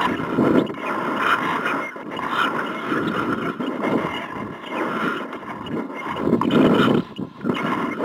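Wind rushing and buffeting over a model rocket's onboard camera as the rocket descends after apogee, the noise swelling and fading every second or two and dropping briefly about seven seconds in.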